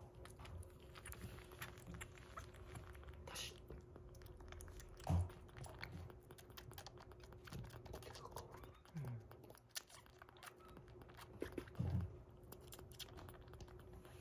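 Kitten suckling milk from a nursing bottle's nipple: rapid small wet clicks and smacks, with a couple of soft low thumps about five seconds in and near the end, over a faint steady hum.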